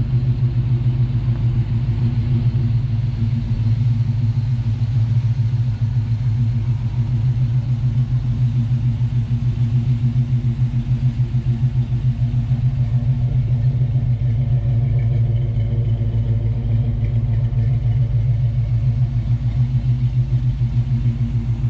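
Chevrolet 350 V8 with headers and a dual exhaust with Flowmaster-style mufflers, idling steadily with an evenly pulsing, deep exhaust note.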